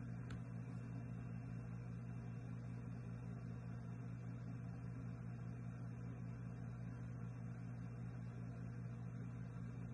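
Steady low background hum, with one faint click just after the start.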